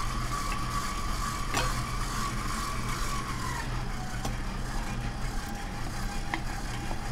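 Stand mixer running at low speed: a steady motor hum with a whine that drops in pitch a little past halfway through. A few light clicks are heard now and then.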